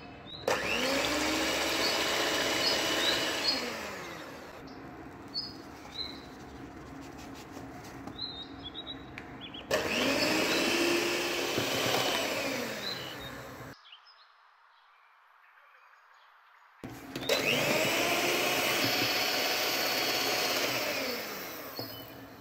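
Electric hand mixer with steel beaters whisking eggs in a plastic bowl, run in three bursts. Its motor whine rises in pitch as each burst starts and falls as it slows. Birds chirp faintly in the pauses.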